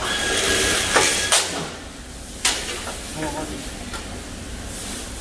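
A steady hiss with a high whine over it for about the first second and a half, then dying down, with sharp clicks about a second in and again near two and a half seconds.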